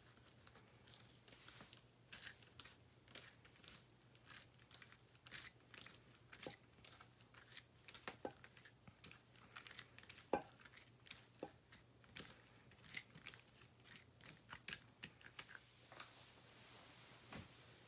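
Faint, scattered soft rustles and light ticks of hands rolling flattened dough into logs on a textured silicone baking mat, over a low steady hum.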